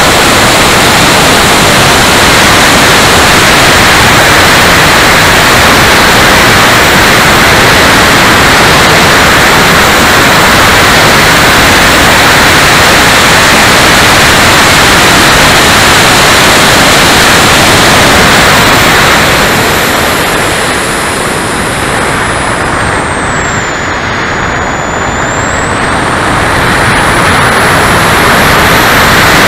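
Electric ducted fan of a Freewing MiG-29 model jet in flight, heard from an onboard camera as a loud, steady rush of fan and wind noise with a thin high whine. About two-thirds of the way through, the rush eases and the whine falls in pitch as the throttle is pulled back, then both rise again near the end as power comes back.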